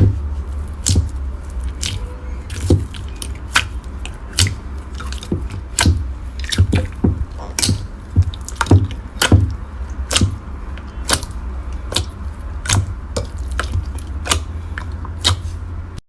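Slime being squeezed and worked by hand, making irregular sharp wet pops and clicks, two or three a second, over a low steady hum.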